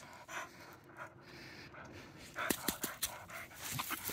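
A dog panting close to the microphone, in quick repeated breaths. Sharp clicks and rustles come in over it from a little past halfway.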